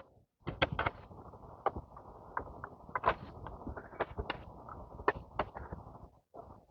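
Irregular sharp clicks and light creaks from hands working at fastening a sunflower head to a garden arbor, over a faint steady hiss.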